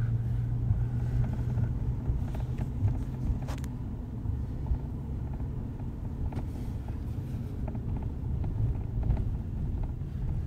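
Road noise inside a moving car: a steady low rumble of engine and tyres.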